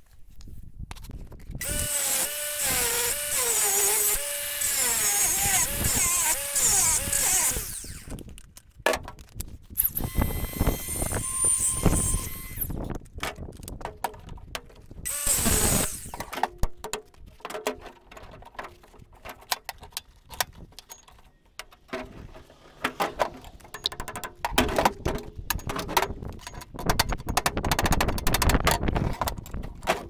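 Angle grinder cutting a slot into a steel 7/8-inch socket clamped in a vise, in several bouts, its pitch wavering as the disc bites into the metal. Between cuts it whines higher, and near the end the cutting goes rougher and more broken up.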